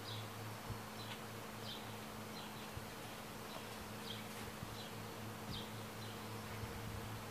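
A steady low buzzing hum, with faint short high chirps repeating every half second to a second and a few soft thumps from kittens tussling on a couch cushion.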